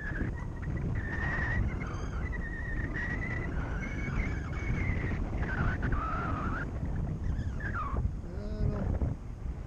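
Wind rushing over the microphone of a paraglider in flight, with a wavering high tone that comes in broken stretches and dips lower in pitch a couple of times.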